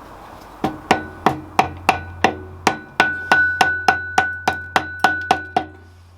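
A hammer knocking on a metal engine part, about seventeen even blows at roughly three a second, each with a short metallic ring. The blows stop a little before the end.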